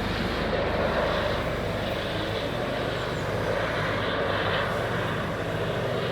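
Helicopter flying overhead: a steady drone of rotor and turbine with a rapid low pulsing.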